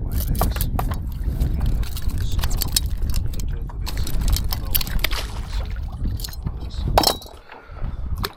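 Wind rumbling on the microphone, with scattered clicks and knocks throughout and a sharper knock about seven seconds in.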